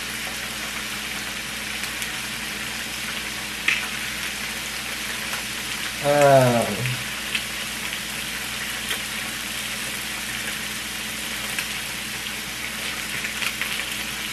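Food sizzling in a frying pan, a steady hiss with fine crackles. A short falling vocal sound comes about six seconds in.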